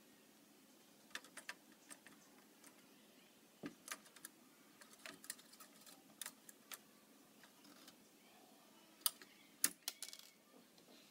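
Small plastic clicks and taps at irregular intervals as fingers handle the pieces of an Enlighten building-brick navy ship model. Two sharper clicks near the end are the loudest.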